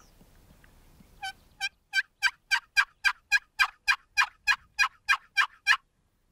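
A WoodHaven Real Hen wooden box call yelping like a hen turkey: two soft notes, then a steady run of about fourteen loud yelps at about three a second, which stops shortly before the end.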